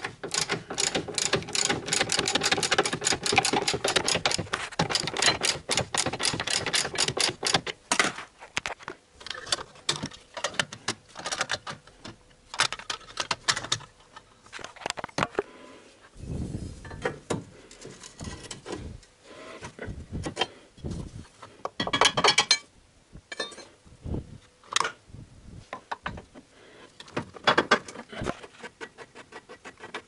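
Hand ratchet wrench clicking rapidly and evenly for about eight seconds as a suspension bolt is run in, then scattered clicks and knocks of tools and metal parts.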